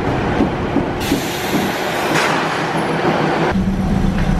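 Diesel passenger train sounds across a couple of cuts. A broad rushing noise comes first, then from about three and a half seconds a steady low diesel engine drone heard inside the carriage.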